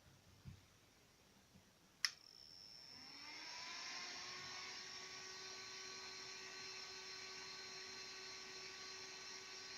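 A soft knock, then a sharp click about two seconds in, after which the small electric fan of a Peltier cooling unit spins up with a rising whine and settles into a steady whir.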